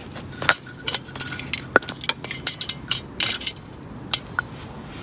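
A quick, irregular run of sharp metallic clinks and knocks, about fifteen in all, a few of them ringing briefly.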